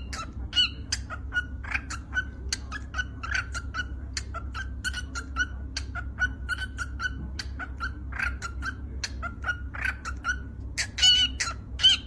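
Female cockatiel calling: a rapid, continuous run of short chirps and clicky chatter, several a second, with a few louder, higher calls near the end.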